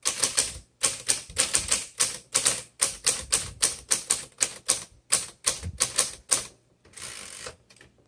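A manual typewriter typing a quick, uneven run of sharp key strikes, about four to five a second, followed near the end by a short rasping sound.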